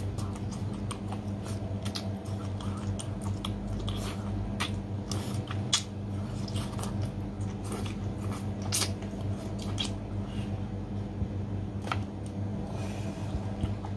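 Close-up mouth sounds of a person eating a whole small octopus soaked in spicy sauce: wet sucking, smacking and chewing on the tentacles, with irregular sharp clicks. A steady low hum runs underneath.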